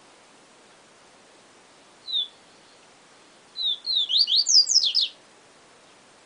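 Papa-capim seedeater (Sporophila) singing a phrase of the 'siu siu professor' song: one short sliding whistle about two seconds in, then a rapid burst of quick sweeping notes lasting about a second and a half, some sliding up high.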